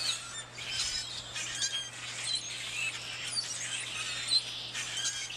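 A noisy flock of birds, which the recordist takes for European starlings, calling all at once: a dense, overlapping chatter of short whistles, clicks and squeaks.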